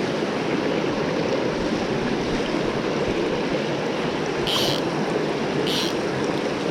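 Mountain stream running steadily, a constant rush of water. Two short, high hisses come about a second apart near the end.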